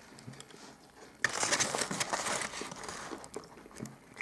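Paper sandwich wrapper crinkling close to the microphone in a sudden burst about a second in, lasting about a second and a half, then tailing off into a few scattered crackles.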